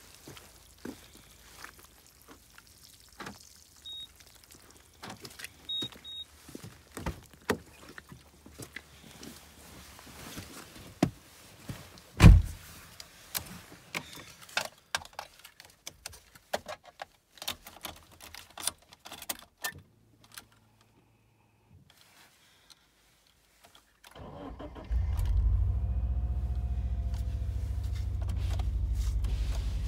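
Scattered clicks and knocks, with one loud thump about twelve seconds in. About twenty-four seconds in, a Subaru Legacy BH5's flat-four boxer engine is cranked and catches, then runs at a steady, slightly raised idle, a cold start in snow.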